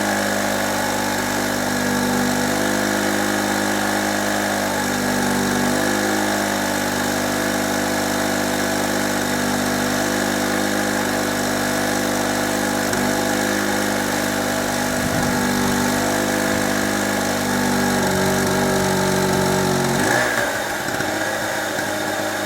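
Small two-stroke 850-watt GMC generator engine running steadily under a 500-watt lamp load, with its petrol tap turned off so that it is running the carburettor dry. About 20 seconds in, its note changes abruptly and drops in pitch.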